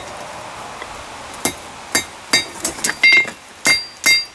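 Hand hammer striking a red-hot steel horseshoe on a Peter Wright anvil, about seven ringing blows beginning about a second and a half in, forging the horse-head's muzzle down over the anvil's edge.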